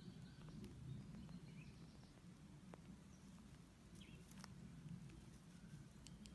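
Near silence: faint outdoor ambience with a low rumble, a few faint short chirps and scattered soft clicks.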